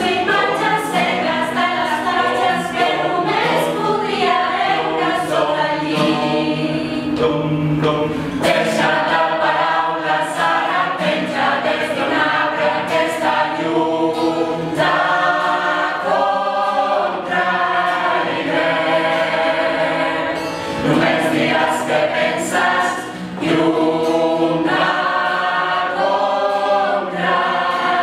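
A small mixed group of men's and women's voices singing together in harmony, with frequent sharp percussive hits marking a beat. The singing dips briefly twice a little past the middle.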